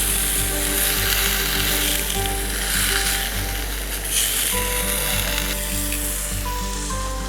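Food sizzling as it fries in a pan, with background music playing over it.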